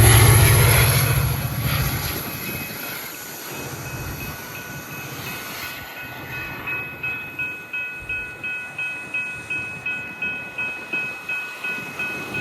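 Train passing with a heavy rumble that fades away over the first two seconds, leaving a railway crossing warning bell ringing steadily about twice a second.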